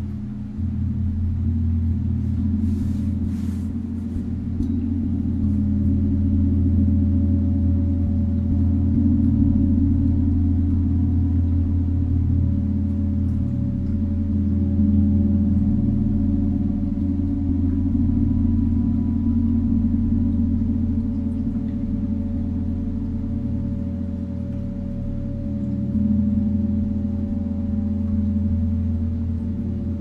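Chiron planet gong played continuously for a gong bath: a deep, sustained wash of low tones with fainter ringing overtones, coming in suddenly, building over the first several seconds and swelling and ebbing after that.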